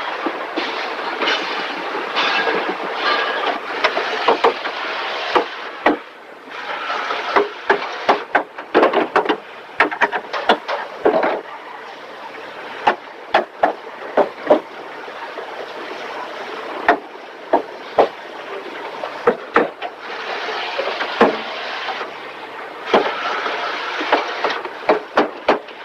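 Car assembly-line factory noise: a steady din with frequent sharp knocks and clatter from parts being fitted. The din is thicker near the start and the end.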